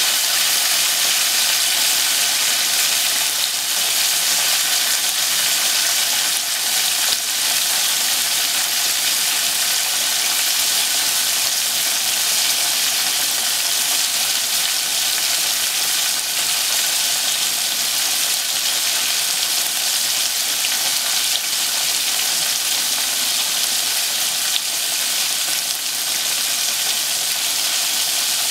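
Breaded pork cutlet (tonkatsu) deep-frying in a pot of hot oil: a steady sizzle of bubbling oil.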